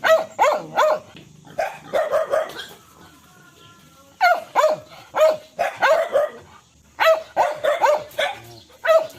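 Dog barking in quick volleys of several sharp barks, with short pauses between the volleys.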